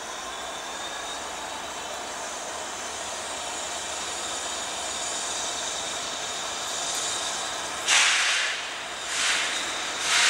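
Steam locomotive 70000 'Britannia' and a Class 66 diesel standing with a steady hum and hiss. About eight seconds in come three loud blasts of steam exhaust, roughly a second apart, as the locomotive starts to move off.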